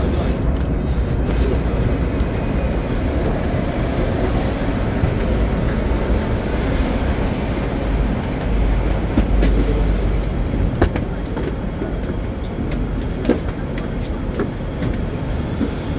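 Hong Kong Tramways double-deck electric tram running along its rails: a steady low rumble, with a few sharp clicks in the second half.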